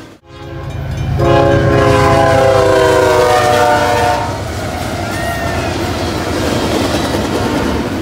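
Locomotive air horn with several chimes, which the uploader guesses is a first-generation Nathan K5HL, sounding one long blast of about three seconds as the locomotive passes, its chord dropping slightly in pitch. Under it and after it comes the low rumble of the locomotives and the freight cars rolling past.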